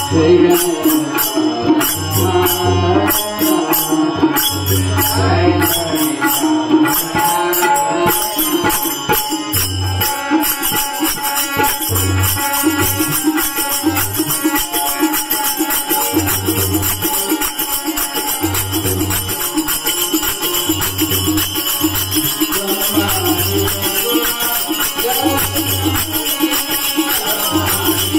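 Bhajan accompaniment: harmonium melody over tabla with deep, recurring bass-drum strokes, and small brass hand cymbals (manjira) keeping a fast, steady jingle that grows denser about ten seconds in.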